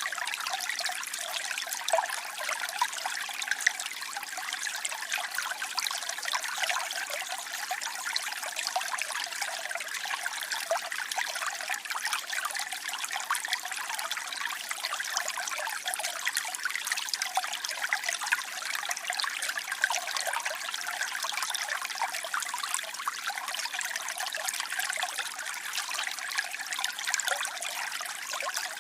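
Waterfall: water splashing and rushing in a steady, even hiss, with many small splashes and little deep rumble.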